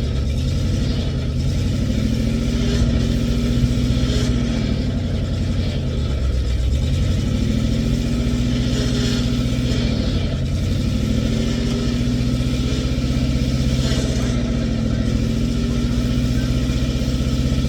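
Old International backhoe's engine running hard, with a whining tone that sags and recovers several times as the hydraulics are worked under load.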